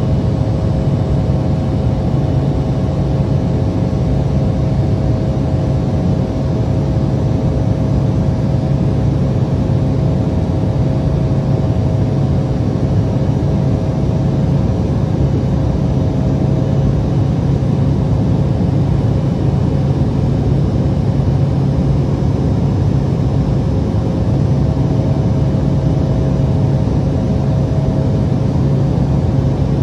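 Cabin noise of an Embraer E175 in the climb: its two wing-mounted CF34 turbofans running at steady power, a constant deep drone with a faint steady hum of tones over it.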